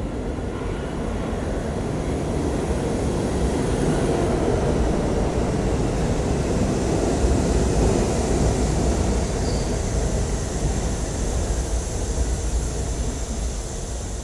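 R68A New York City subway train pulling into the station alongside the platform: a steady rumble of wheels on rail that grows louder as the cars come past, peaks about halfway through, then eases a little.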